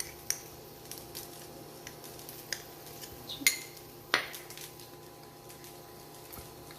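A metal utensil clinking against dishes a few scattered times, the sharpest clinks about three and a half and four seconds in, over a steady faint hum.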